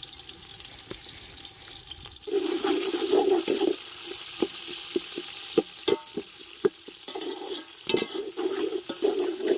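Sliced onions and whole spices frying in hot oil in a metal pot, the sizzle growing louder about two seconds in. A slotted metal spoon stirs them, scraping and knocking against the pot.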